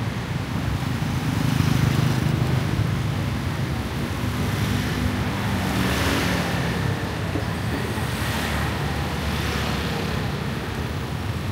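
Street traffic, mostly motor scooters and motorbikes going by: a steady engine hum and tyre noise, with louder passes about halfway through and again a couple of seconds later.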